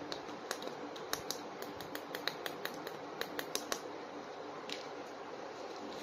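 Quick, irregular hard-plastic clicks and taps from handling a plastic Hulk action figure, several a second for the first few seconds, then one more click near the end.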